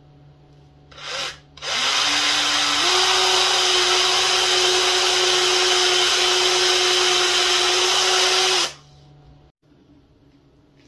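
Electric drill with a long twist bit boring into a block of wood: a short blip of the motor, then it runs steadily for about seven seconds, its pitch stepping up once about a second after it starts, and then stops.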